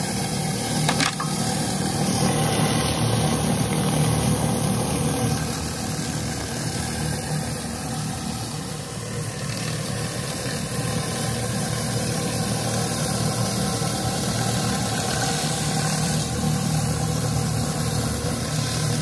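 A pressure washer running steadily while a hammerhead surface cleaner is pushed over wet concrete. A constant hiss of high-pressure water sits over a steady engine hum.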